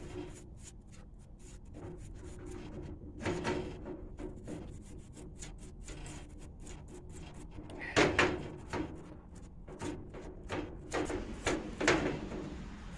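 A toothbrush scrubbing the small metal parts of a governor, with a run of light clicks and rattles as the parts are handled and a few louder bursts about three seconds in, around eight seconds and near the end.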